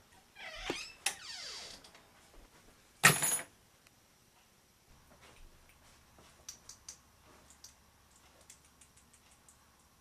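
A door hinge creaking with a drawn-out squeal as the door swings, then one loud bang about three seconds in. Faint light clicks follow as a small watch is handled, with a quick run of ticks near the end.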